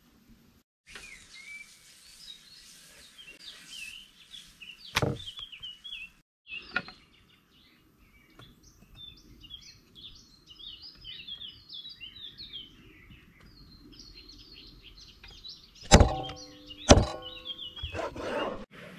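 Small birds chirping and singing outdoors, with a few sharp knocks from work at hand. The two loudest knocks come near the end, each ringing briefly.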